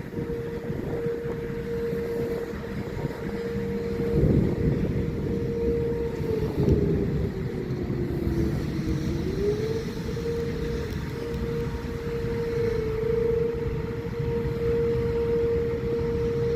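Outdoor warning siren sounding a steady tone. Midway its pitch sags briefly and then climbs back to the same note. A heavy low rumble runs underneath, surging about four and about six and a half seconds in.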